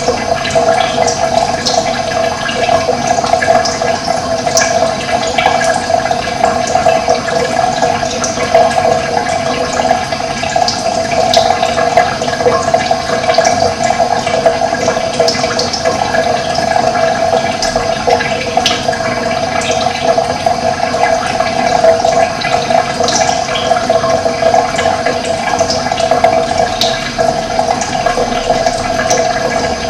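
Steady rush of running water, with short high bird chirps scattered throughout.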